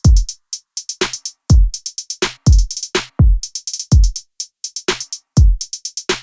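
Electronic backing music: a drum-machine beat of deep kick drums that drop in pitch, about two a second, over fast hi-hats.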